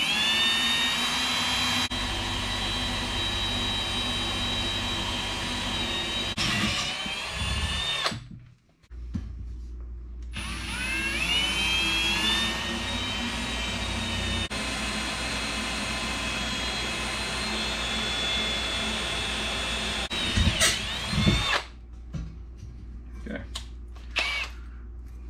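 Handheld drill boring holes through scrap metal in two long runs at a steady speed. Each run starts with a rising whine as the motor spins up, with a short pause about eight seconds in. A few clicks and knocks follow near the end.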